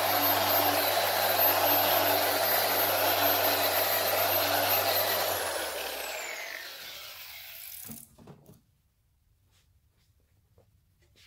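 G8 mini random orbital polisher with a sponge pad running steadily as it buffs water-sanded paint, then switched off about five seconds in, its hum falling in pitch as it spins down and fades over the next few seconds. A couple of short knocks follow near the end of the fade.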